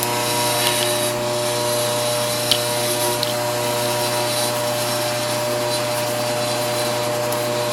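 Electric motor running with a steady, even hum. A couple of faint clicks come about two and a half and three seconds in.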